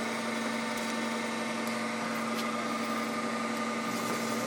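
Binns & Berry Data 90 CNC lathe running under power: a steady machine hum with a constant whine, and a higher tone coming up near the end.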